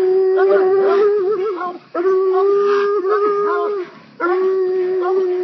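Two coonhounds baying at a tree in long, drawn-out howls that overlap, breaking off briefly twice: tree barking on a raccoon.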